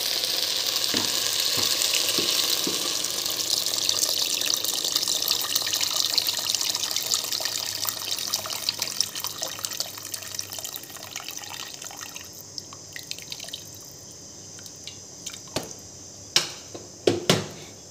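Hot water poured from a vessel into a pressure cooker of fried rice and tomato masala: a steady splashing pour that thins out and stops about twelve seconds in. Near the end come a few sharp knocks of the steel ladle against the pot.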